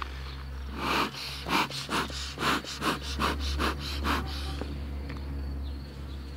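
A plastic sheet crinkling and rustling in short irregular crackles as it is peeled back off the top bars of a beehive. After about four and a half seconds it stops, leaving a steady low hum from the uncovered honeybee colony.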